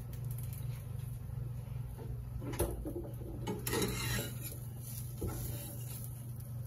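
Kitchen handling noises: a few short knocks and clinks of utensils and dishes on the counter, over a steady low hum.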